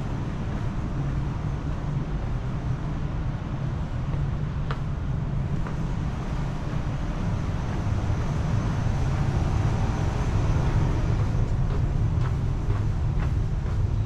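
Steady low rumble of city background noise with a few faint clicks; it swells slightly about two-thirds of the way through.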